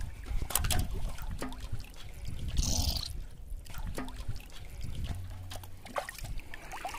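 Water trickling and splashing as hands handle live fish in a metal basin floating in shallow river water, with scattered knocks and a louder splash just under three seconds in.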